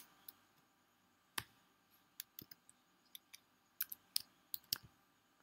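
Computer keyboard keys being typed: about a dozen separate, irregular keystroke clicks, quiet and spread out, mostly after the first second.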